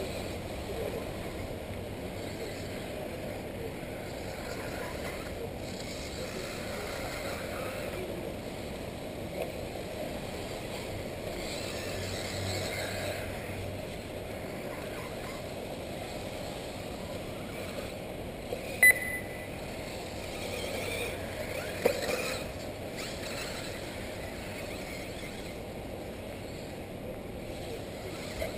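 Steady outdoor noise of 1/8-scale electric off-road RC buggies running on the track. Two sharp knocks stand out about two-thirds of the way through.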